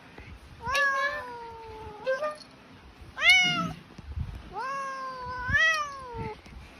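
A cat meowing three times: a long, falling meow, a short one about three seconds in, then another long meow that rises near its end.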